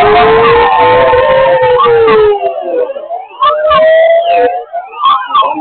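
Several sirens wailing at once, their pitches rising and falling and crossing each other. Guitar music plays under them and cuts off about two seconds in, after which the sirens go on alone, broken by a few sharp clicks.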